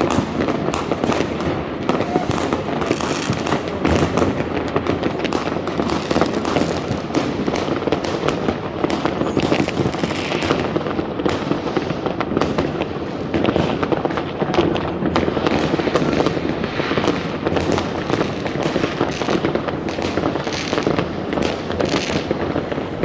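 A dense, continuous barrage of fireworks and firecrackers: many overlapping bangs and crackles with no let-up.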